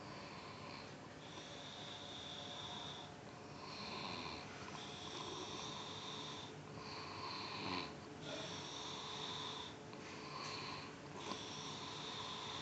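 Someone snoring in sleep, breath after breath, each breath carrying a thin high whistle.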